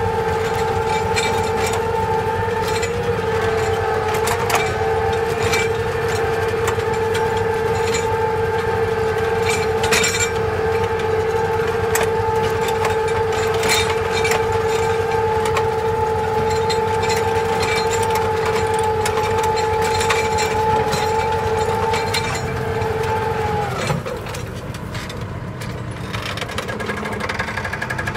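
Erkunt Kudret tractor running steadily under load while pulling a mounted plough through the soil, a high steady note over the engine with scattered clicks and knocks. About 24 seconds in the note drops to a lower pitch and the sound gets quieter as the revs fall.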